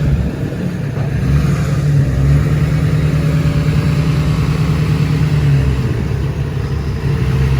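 A large truck engine running close by with a steady low drone. The drone eases off briefly about a second in and again near the end.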